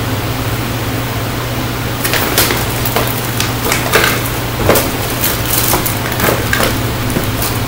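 A gift bag and what is inside it rustling and crinkling in irregular crackles as hands rummage through it, starting about two seconds in, over the steady hum of a fan.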